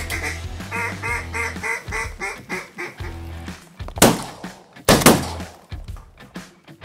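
A quick run of about ten mallard quacks, evenly spaced, over fading background music. Then, about four seconds in, two shotgun shots less than a second apart, each trailing off in an echo.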